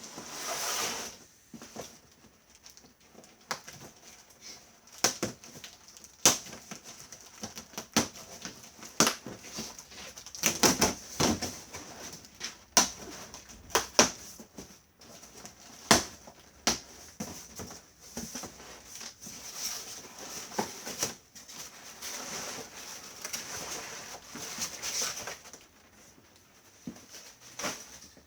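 Irregular rustling, crinkling and knocking of packaging and parts being handled while unpacking a Hoover Constellation vacuum cleaner. The knocks come unevenly, with the busiest handling in the middle of the stretch.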